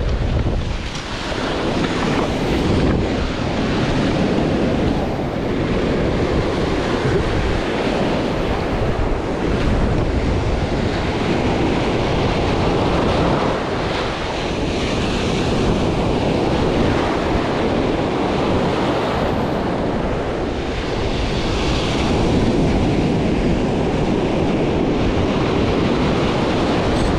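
Ocean surf breaking and washing up onto a sandy beach, with wind buffeting the microphone; a steady rushing that swells and eases with the waves.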